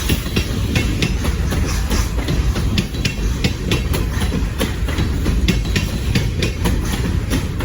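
Ontario Northland train rolling by, its wheels clicking over the rail joints in a rapid, uneven clickety-clack over a steady rumble.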